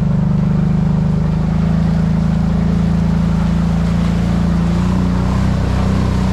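Off-road vehicle's engine running steadily under load in four-wheel drive while driving through trail water, its pitch shifting slightly about five seconds in.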